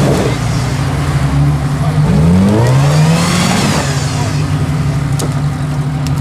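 Jeep Cherokee's engine revving under load while the SUV is stuck in deep mud. The engine pitch climbs about two seconds in and then holds steady at a higher pitch, with a brief rush of hiss around the peak.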